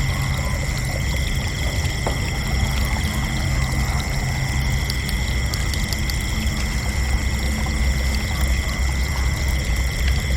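Crickets chirping in a continuous chorus: several steady high trills, some pulsing, layered over one another. Beneath them runs a low, even rushing rumble.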